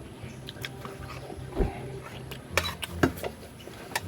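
A few scattered clicks and knocks over a low steady hum, the sharpest about two and a half to three seconds in, like dishes or utensils being handled.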